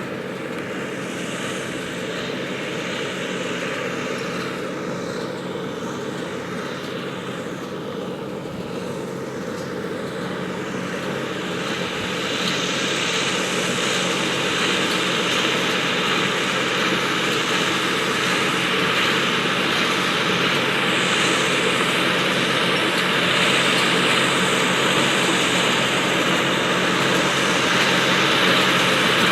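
Massey Ferguson tractor and baler running steadily at work, with a continuous engine hum and machine noise that grows louder about twelve seconds in.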